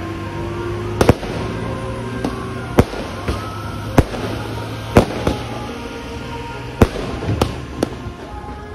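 Aerial fireworks bursting overhead: irregular sharp bangs, about one a second, with smaller pops between them.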